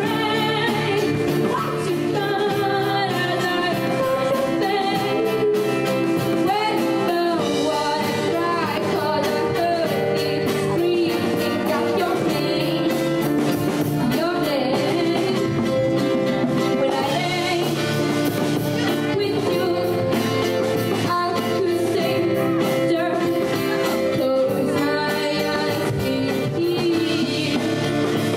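Live pop band performance: a girl's lead vocal sung into a microphone over acoustic guitar, piano, drums and bongos, with a steady beat throughout.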